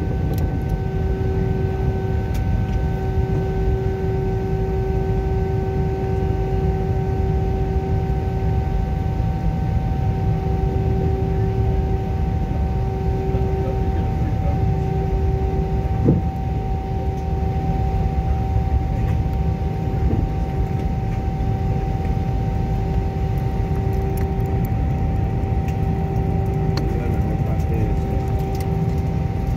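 Airbus A320's IAE V2500 engines at idle during taxi, heard inside the cabin as a steady rumble with several steady whining tones over it. There is one brief knock about 16 seconds in.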